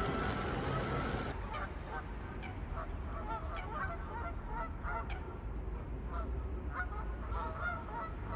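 Geese honking repeatedly, many short calls one after another, over a low steady rumble.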